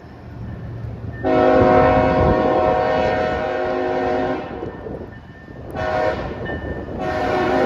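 Diesel freight locomotive's air horn sounding a chord: a long blast of about three seconds, a short blast about five seconds later, then another long blast starting near the end, the long-short-long pattern of a grade crossing signal. A low engine rumble runs underneath.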